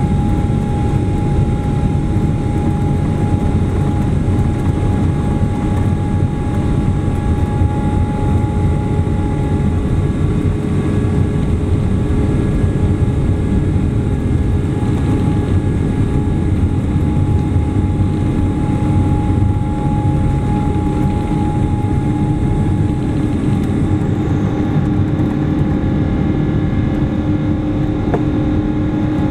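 Boeing 777-200ER turbofan engines at takeoff thrust, heard from inside the cabin: a steady, loud roar over runway rumble, with several steady whining tones, through the takeoff roll and lift-off. A new low hum comes in near the end.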